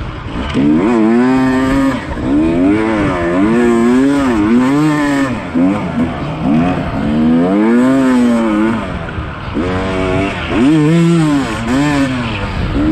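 Yamaha YZ250 two-stroke dirt bike engine ridden hard, its pitch rising and falling every second or so as the throttle is opened and shut over and over.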